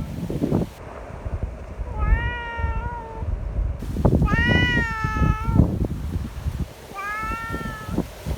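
A cat meowing three times, long drawn-out meows with the middle one the loudest, over a low rumble of wind buffeting the microphone.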